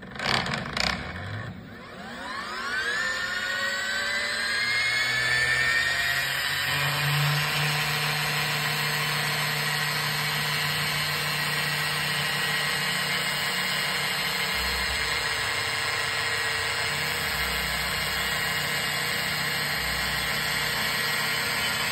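Motor of a track-mounted concrete saw unit switched on with a couple of knocks, spinning up with a rising whine over about two seconds, then running steadily at speed with a high whine and a low hum.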